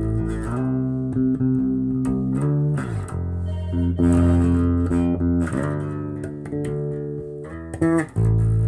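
Bass guitar played through a Kustom KXB100 bass combo amplifier: a run of sustained notes, changing pitch every second or so. The sound is clean, showing the repaired amp passing signal again.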